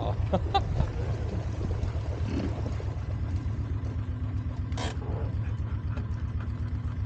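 Small utility-vehicle engine idling steadily, a low rumble with an even fast beat. A single short sharp cry cuts over it about five seconds in.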